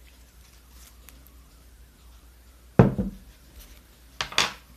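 Faint handling sounds, then a single loud thump about three seconds in and a brief clatter near the end, as objects are moved on a table.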